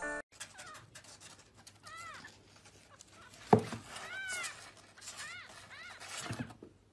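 Kittens mewing: a series of short, high, rising-and-falling mews, a few at a time. A single sharp thump about halfway through.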